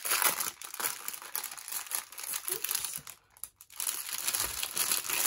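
Crinkling of small plastic bags of diamond painting drills being handled and turned over in the hands, pausing briefly a little past halfway.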